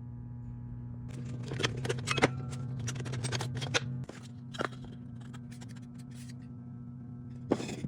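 Woodworking hand work: a quick run of sharp taps and clicks on wood, thinning out after about four seconds, over a steady low hum, with a louder scrape near the end.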